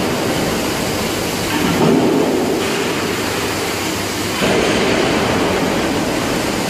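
Industrial textile drying machine running on a factory floor: a loud, steady mechanical din whose level shifts slightly a few times.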